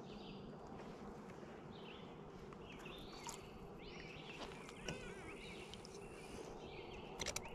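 Quiet outdoor ambience with a steady faint hum and a few short, wavering high calls, like small birds, in the middle. A quick run of clicks comes near the end as fishing line is handled.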